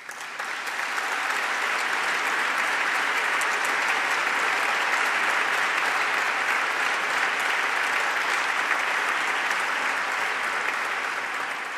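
A large seated audience applauding in a reverberant hall, a dense steady clapping that builds over the first second and starts to fade near the end.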